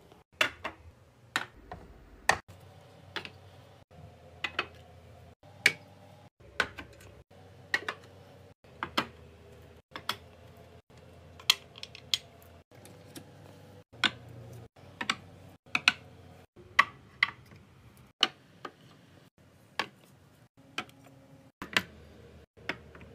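Sharp clinks and taps of ceramic canisters, lids, a scoop and glass syrup bottles being handled and set down on a bar cart, about one or two a second, broken by abrupt cuts between short clips.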